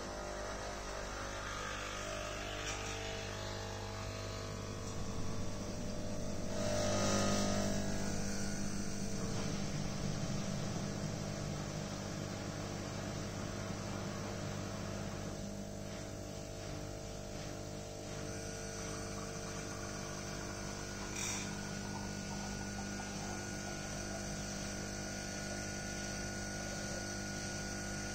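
Sage Barista Express espresso machine's vibratory pump humming steadily while a shot of espresso is pulled, swelling louder for a few seconds about seven seconds in.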